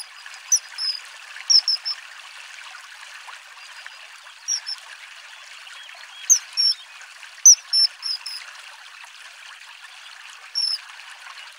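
Common kingfishers calling: short, shrill, high whistles, singly and in quick twos, threes and fours, over the steady rush of running water from a stream.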